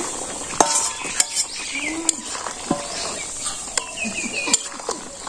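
A steel spatula clinking and scraping against a metal karahi as a simmering curry is stirred, with several sharp clinks spread through. Birds chirp in the background.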